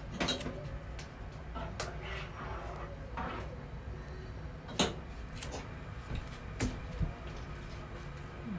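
A utensil knocking and clicking against a cooking pot now and then, about six times, over a steady low hum.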